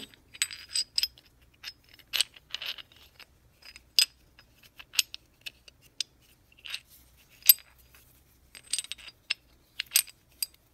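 Small steel parts of an air impact wrench clicking and clinking against each other as they are fitted together by hand, a string of sharp metallic clicks, several ringing briefly.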